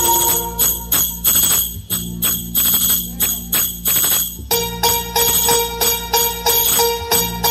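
Live band playing the instrumental interlude of a Hindi film song: a percussion beat of about three strokes a second with bright high shaking or jingling, and held chord notes that drop out about half a second in and return after about four and a half seconds.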